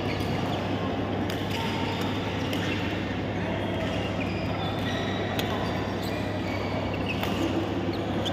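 Badminton racket strikes on a shuttlecock, a few sharp clicks spread irregularly, with brief squeaks of court shoes on the floor, over a steady low hum.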